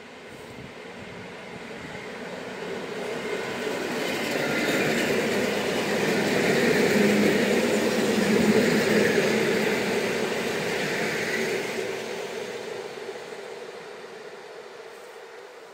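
Electric multiple unit passing through a station without stopping, growing louder as it approaches, loudest about seven to nine seconds in as it goes by, then fading away.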